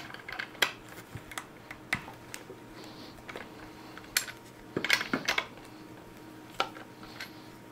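Irregular sharp metallic clicks and clinks of a scrench on the bar nuts of a Stihl 500i chainsaw's side cover as the nuts are loosened.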